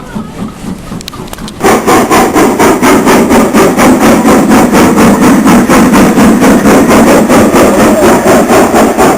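Steam locomotive working hard close by, its exhaust beats coming loud and even at about three to four a second; they start suddenly about a second and a half in.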